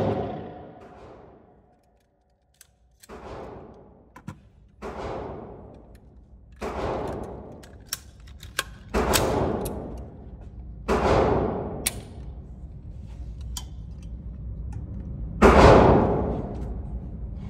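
Single gunshots from an AR-15 pistol fired at an indoor range, about six shots spaced unevenly a second or more apart, each followed by a long echoing tail off the range walls. The loudest shot comes near the end.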